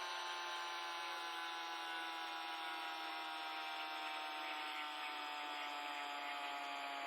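Small electric motor running with a steady whine that drifts slowly lower in pitch.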